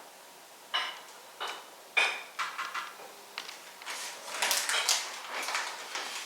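A spoon clinking against a container: a few separate ringing clinks, then quicker clinking from about four seconds in, as borax is added to water and stirred in to make the borax solution for slime.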